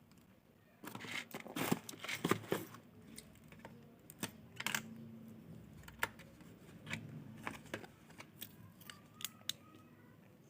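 Handling noise from an unboxing: plastic packaging rustling and crinkling with sharp clicks, busiest in a burst about a second in, then scattered single clicks.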